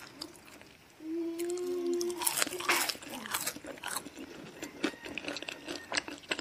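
Eating sounds at a table: crunching and chewing of crispy fried chicken, with scattered small clicks of hands and utensils on plates. A short steady hum lasts about a second, starting about a second in.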